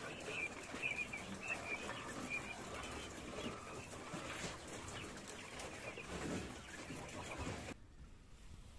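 Caged quail chirping with short, soft calls, strongest in the first couple of seconds, over rustling and clicking from birds moving in wire cages. Near the end the sound drops abruptly to a faint hush.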